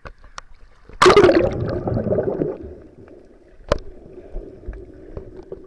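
Waterproof action camera dipping under the sea surface with a sudden loud splash about a second in, then muffled underwater water noise. A single sharp click comes near the end.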